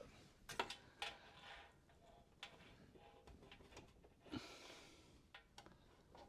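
Near silence, broken by a few faint clicks and knocks of handling.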